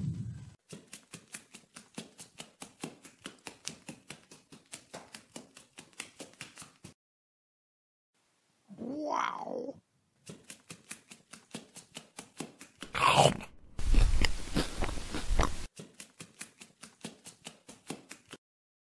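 Cartoon sound effects for a waddling clay duck: quick soft footstep ticks, about five a second, that stop and start. There is a short call about nine seconds in and a louder rough burst about two-thirds through.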